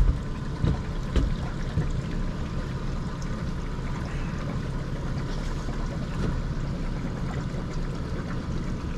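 Honda outboard motor on a small fishing boat running steadily at low trolling speed, a constant low rumble with a faint steady whine.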